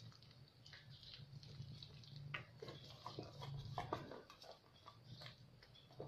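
Faint, irregular wet scraping and light clicks of a wire whisk stirring a thick batter in a steel bowl.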